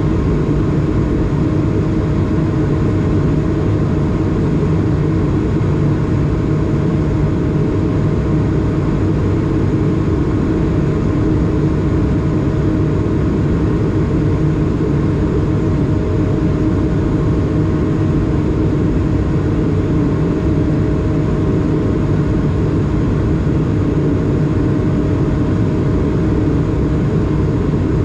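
Steady cabin drone of an Airbus A220 in flight, heard inside the cabin beside the wing: the hum of its Pratt & Whitney PW1500G geared turbofan engines and rushing airflow, a low rumble with a few steady tones over it, unchanging throughout.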